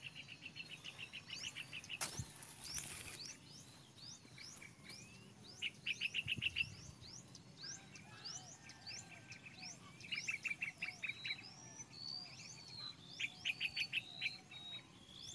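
A chorus of many wild birds calling at once: repeated quick runs of chirps and many short downward-sweeping whistles, overlapping throughout. A single sharp click comes about two seconds in.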